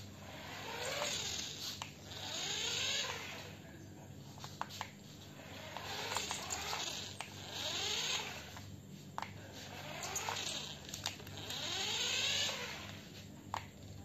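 Small battery-powered toy car's motor whirring in repeated swells, each rising and falling over a second or two with a hiss, over a steady low hum, with scattered light clicks.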